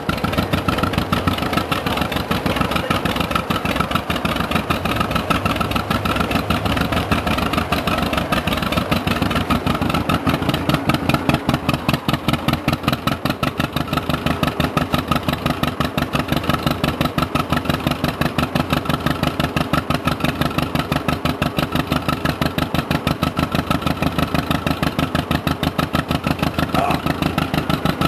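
Old John Deere tractor's two-cylinder engine idling steadily, with an even, rapid put-put of firing strokes.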